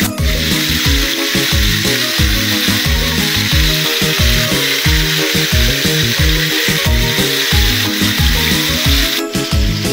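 Salmon steaks sizzling in hot oil in a frying pan, a steady hiss that breaks off briefly near the end. Under it runs background music with a regular beat and bass line.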